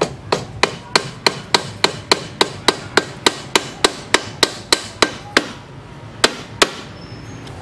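Rubber mallet tapping a hook wrench on a motorcycle's steering-stem nut to loosen it, as the nut is stuck tight. About twenty quick, even strikes at roughly three a second, a short pause, then two more.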